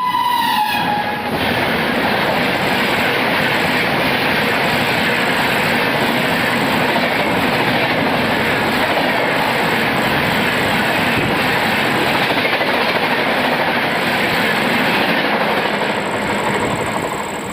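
An express train's horn dips in pitch and stops about a second in. Then comes the loud, continuous rush and wheel clatter of LHB coaches passing close at high speed, easing off near the end.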